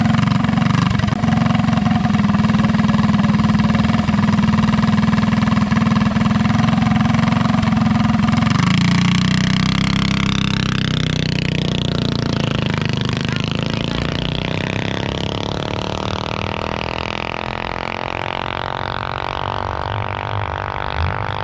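Mini bike engine running hard at high, steady revs for about eight seconds. After that its note shifts and wavers, and it gets a little quieter.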